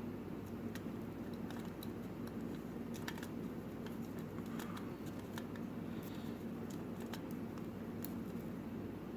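Faint, scattered clicks and light scrapes from handling the small plastic parts of an opened wireless computer mouse, over a steady low hum.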